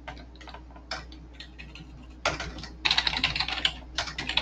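Typing on a computer keyboard: scattered single keystrokes at first, then quick runs of keys from about halfway through.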